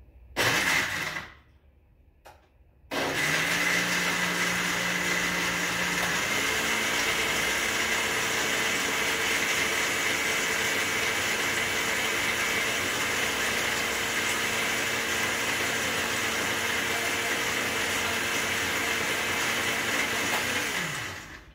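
Countertop blender grinding raw peanuts in water. It gives a short pulse, pauses about two seconds, then runs steadily for about eighteen seconds. Its pitch steps up about six seconds in, and it winds down just before the end.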